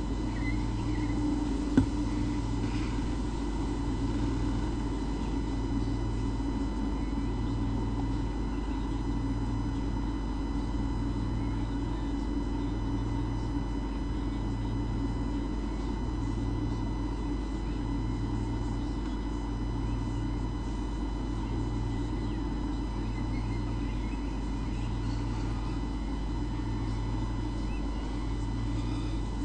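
Steady electrical hum and hiss with a low throb that pulses about every second and a half, and a single sharp click about two seconds in.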